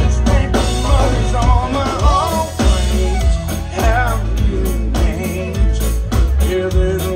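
Country band playing live: electric bass and drums keep a steady beat under a gliding, wavering lead melody.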